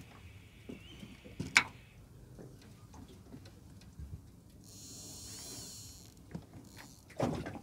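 Fishing gear being handled in a small aluminium boat: scattered small clicks and knocks, with a sharp click about one and a half seconds in, a short hiss around five seconds in, and a heavier knock near the end.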